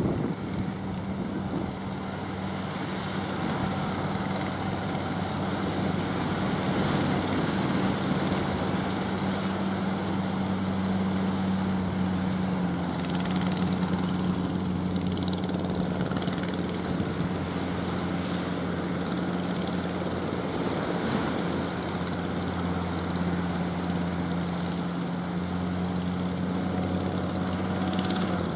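Engine of a wooden fishing boat running steadily as it motors in through an estuary mouth, a low even hum that dips slightly in pitch about halfway, over wind and surf.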